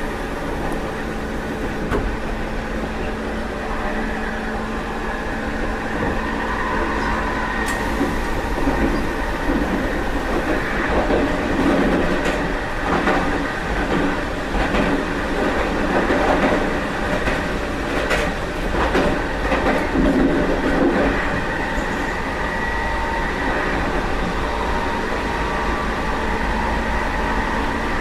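Meitetsu 1030 series limited-express electric train running, heard from the car's vestibule deck; its running gear is reused from the 7500 series Panorama Car. A steady rumble and hum with a faint whine, and wheels clattering over the rails, louder and busier from about 8 to 21 seconds in.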